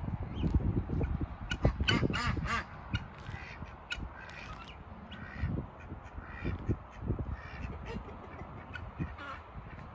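Ducks quacking in a backyard flock of ducks, chickens and guinea fowl, a loud run of quacks about two seconds in and quieter calls after, over a low rumble in the first few seconds.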